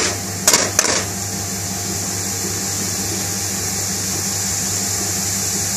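Steady mechanical hum and hiss of kitchen machinery, with two sharp clicks about half a second to a second in.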